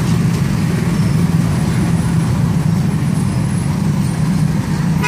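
Steady low rumble of street traffic and running engines.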